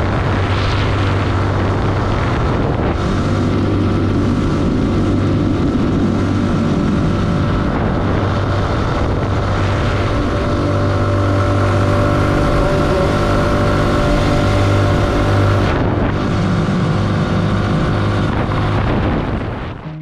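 Lifan KPX 250 single-cylinder motorcycle engine running steadily at cruising speed, mixed with wind and road noise while riding.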